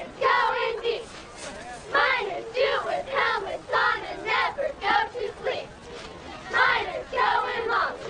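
Cheerleading squad shouting a cheer in unison, a group of young female voices chanting syllables in a steady rhythm.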